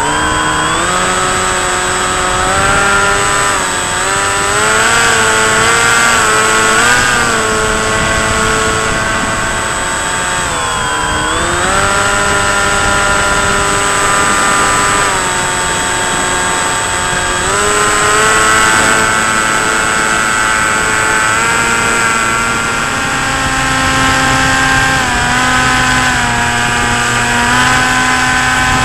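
Electric motor and propeller of a small RC plane, heard from its onboard camera: a steady whine whose pitch rises and falls with the throttle, dropping sharply and climbing back about ten seconds in, with wind rushing over the airframe.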